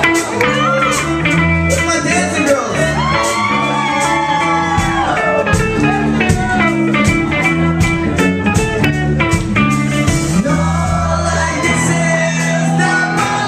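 A rock band playing live: electric guitar, bass and drum kit with a steady beat, and a voice singing over it for the first few seconds and again near the end.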